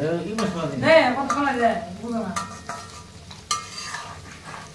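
Onion fritters (piyaju) sizzling in hot oil in an aluminium karai, turned with a slotted metal spoon that clicks and scrapes against the pan through the second half.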